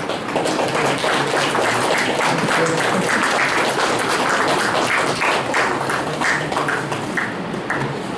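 Audience applauding with dense, irregular hand-clapping that thins out to a few scattered claps near the end.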